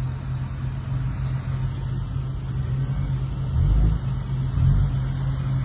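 Vehicles in slow street traffic, mail delivery trucks among them, passing with a steady low engine drone; it swells louder twice past the middle.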